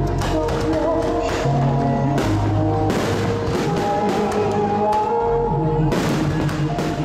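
Music with long held notes playing loudly over a fireworks display, with repeated sharp bangs and crackles from aerial shells bursting.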